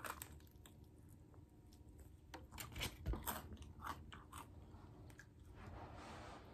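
Faint chewing with crisp crunches from biting into a taco, most of them clustered a couple of seconds in.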